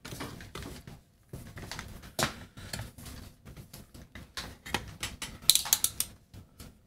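Irregular small clicks and rattles of test leads and their clips being handled and hooked between a decade resistance box and an amplifier circuit board, with a quick cluster of sharper clicks about five and a half seconds in.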